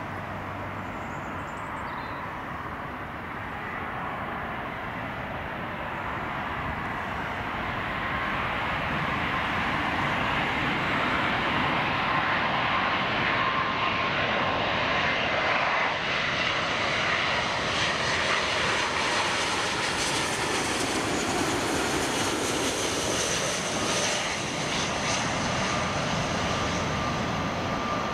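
Jet engine roar of a Boeing 777-200ER airliner on landing approach, growing louder over the first dozen seconds as it comes closer and staying loud as it passes, with a faint steady whine running through it.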